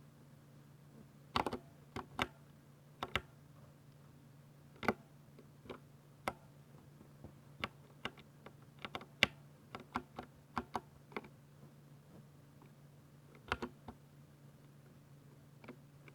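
Keys being pressed on a Ducky 60% mechanical keyboard with silver linear switches: scattered single keystrokes, then a quick run of presses about halfway through, then a few more. A faint steady low hum sits underneath.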